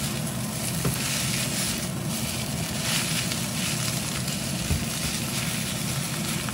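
Rice vermicelli sizzling in a hot iron wok as it is stirred and tossed with a silicone spatula: a steady frying hiss. This is the final sear over medium-high heat.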